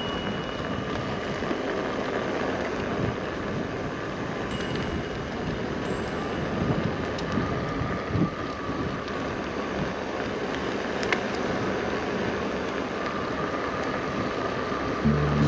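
Steady wind and rolling noise from riding an electric unicycle, with a couple of faint clicks partway through.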